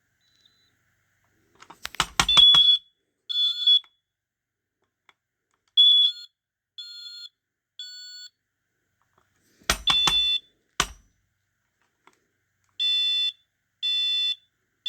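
A 9120B smoke alarm's piezo horn being tested. A few clicks of the test button and handling come first. Then come short, shrill beeps that start and stop unevenly, some strong and some faint and faltering, a sound the owner calls a "dying sound". Near the end it settles into three evenly spaced beeps about a second apart.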